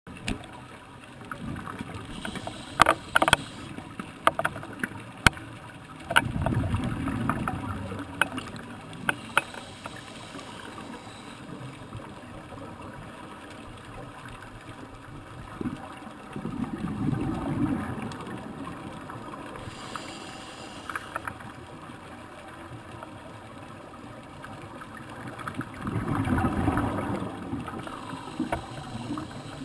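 Scuba divers breathing from regulators underwater: exhaled bubbles rumble and gurgle in three swells roughly ten seconds apart, over a steady watery hiss, with a few sharp clicks in the first third.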